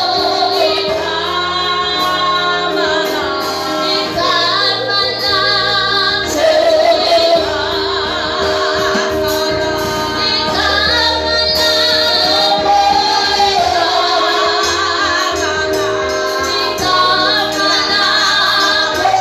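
Gospel singing led by a woman's voice over sustained keyboard chords.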